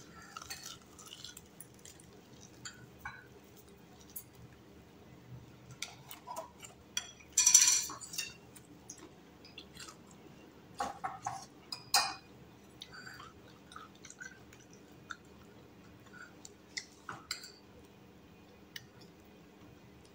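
Crunchy flour-and-cornstarch crust of a fried chicken wing crackling and snapping as it is torn apart by hand, in scattered small crunches with a louder one about a third of the way in and two more a little past the middle.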